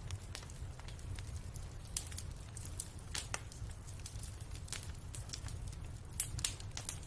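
Fireplace fire crackling: irregular sharp pops and snaps over a steady low rumble, with a louder pop a little after six seconds in.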